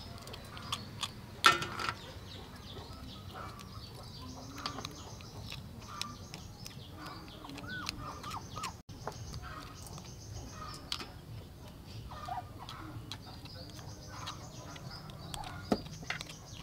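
A metal spoon clicking and scraping against cooked snail shells as the meat is scooped out, with the sharpest tap about one and a half seconds in. Chickens cluck in the background.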